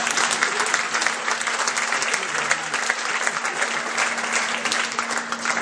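Theatre audience applauding, a dense patter of clapping that thins out and fades near the end.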